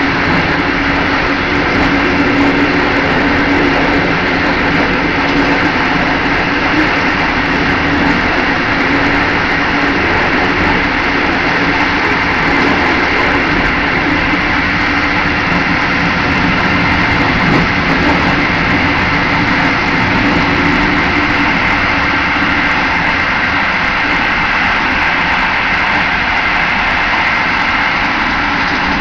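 Steady running noise of a moving train heard from inside its last carriage: an unbroken rumble of wheels on rail with a steady low hum.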